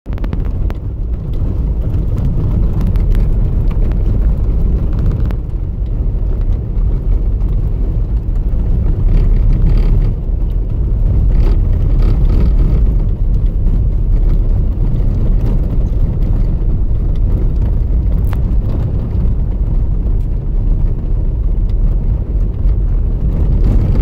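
Steady low rumble of a vehicle driving on a snow-packed road, heard from inside the cabin: tyre and engine noise.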